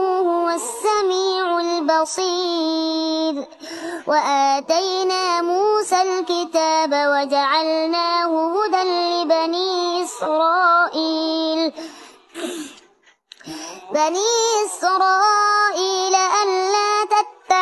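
A young boy reciting the Quran in the melodic tilawah style, in a clear, high voice drawing out long ornamented phrases. He breaks off for a breath about twelve seconds in, then resumes.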